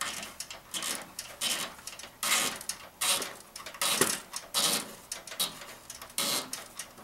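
Hand-tightening a water-cooling compression fitting onto tubing: a series of short, irregular scraping and rustling sounds from the fitting, hands and sleeves, roughly one or two a second.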